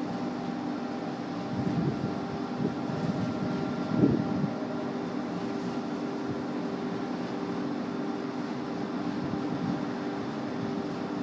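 Steady mechanical drone of a distant approaching CrossCountry Voyager diesel multiple unit. There are two brief louder rumbles, about two and four seconds in.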